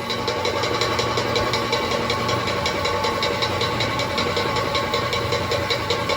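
Live folk-dance music: a rapid, even drumbeat over a steady held tone.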